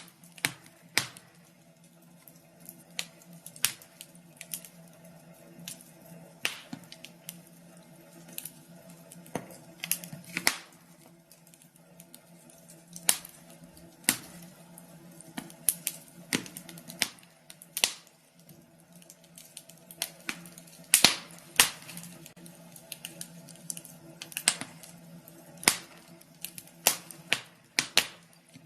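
Wood fire crackling in a fireplace, with irregular sharp pops and snaps at uneven intervals, a few louder than the rest, over a faint steady low hum.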